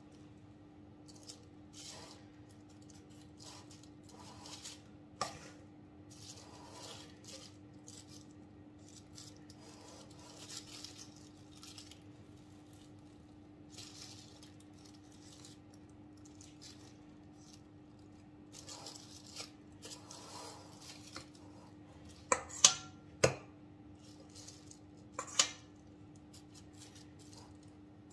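Metal spoon scooping and spreading whipped cream in a plastic-lined cake ring, with soft scraping and squishing. A few sharp clinks of the spoon on metal come about 22 to 23 seconds in and again near 25 seconds, over a steady low hum.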